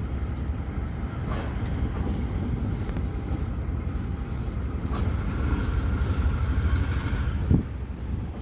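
KiwiRail train rumbling through a rail yard, wheels clicking over the track, with a steady high-pitched tone for about two seconds past the middle and a single sharp clank near the end.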